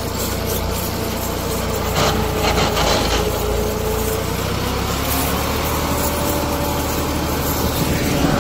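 Diesel farm tractor engine running steadily under load while pulling a spring-tine cultivator through loose soil, with the rattle and scrape of the cultivator's frame, chains and tines. A stretch of louder clattering comes about two seconds in.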